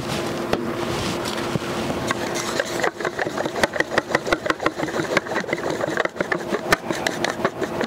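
Small airbrush air compressor running with a steady hum. From about three seconds in, a quick run of small sharp clicks and taps.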